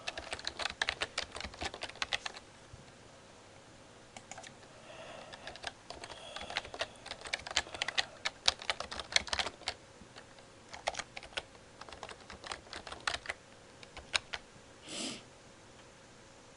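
Typing on a computer keyboard in quick runs of key clicks with short pauses between them. A brief rush of noise comes near the end.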